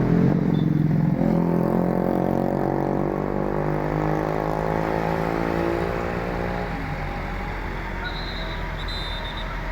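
Tour bus diesel engine running as the bus moves off, a steady drone whose pitch drifts slowly down before it fades away after about six seconds.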